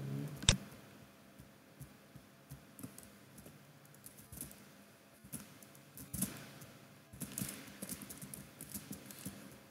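Typing on a computer keyboard: scattered single keystrokes, then quick runs of keys near the end, with one sharp click about half a second in the loudest.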